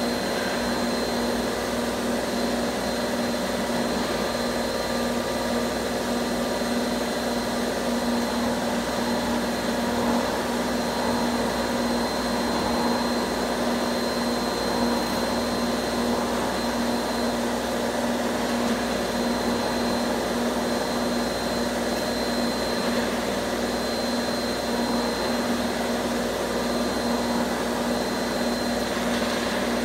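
Electric angle-bar bending machine running steadily as it rolls a steel bar into coiled rings. It makes a constant motor-and-gear drone with a thin, high, steady whine.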